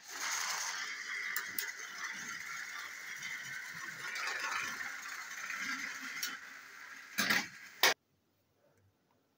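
Two battery-powered toy train engines whirring steadily as their motors drive them along plastic track, with rattling from the wheels. Near the end come two loud knocks, then the sound cuts off.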